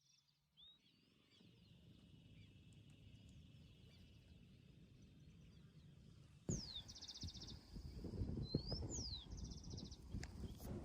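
Southern lapwings alarm-calling, disturbed by someone walking near them: from about six seconds in, sharp falling whistles and rapid buzzy pulsed calls over a low wind rumble on the microphone.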